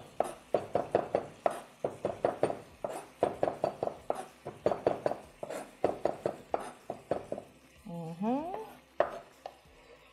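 A knife rapidly chopping fresh mint leaves fine on a wooden cutting board, about five quick knocks a second. The chopping stops about three-quarters of the way through, followed by a short rising tone and one last knock.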